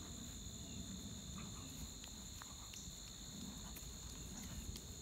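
Steady high chirring of insects such as crickets, holding two even pitches without a break, over a low background rumble.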